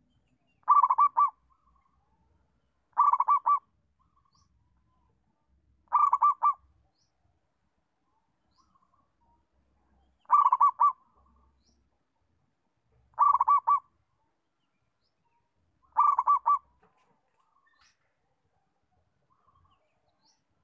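Zebra dove (perkutut) singing its cooing song: six short phrases of quick rolling coo notes, each about half a second long, repeated every two to four seconds.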